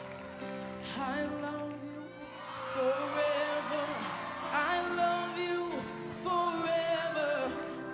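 A boy singing solo into a microphone over a band's accompaniment, his voice sliding through bending runs and held notes.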